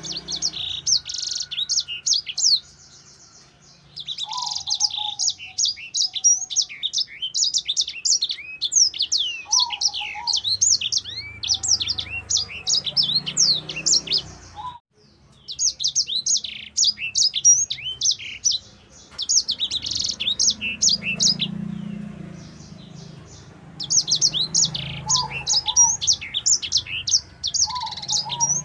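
A caged sanger singing a fast, high twittering song of rapid chirps and trills in long runs, broken by short pauses about three seconds in and about halfway through.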